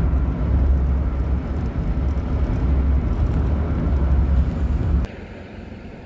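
Steady low rumble and road and wind noise of a moving vehicle, cutting off abruptly about five seconds in; a much quieter, even hiss follows.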